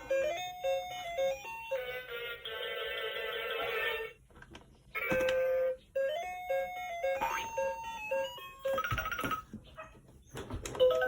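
A toy hamster playing electronic beeping melodies in short runs, with a break about four seconds in and a brief one around six seconds.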